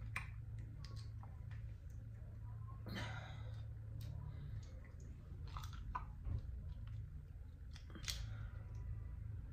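Dungeness crab shell cracked and picked apart by hand: scattered sharp cracks and clicks, the clearest about three, four, six and eight seconds in, over a low steady hum.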